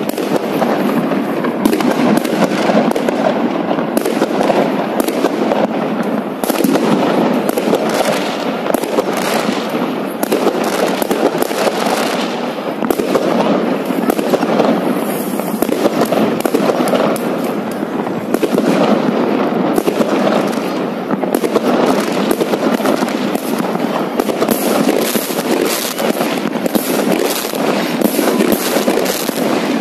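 New Year fireworks going off in a dense, continuous barrage of sharp bangs and crackles.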